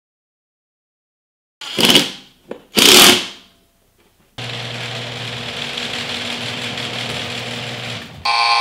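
Cordless drill driving screws through a steel backdrop bracket into a ceiling joist in two short bursts. Then a steady motor sound runs for about four seconds, and a buzzing tone starts near the end.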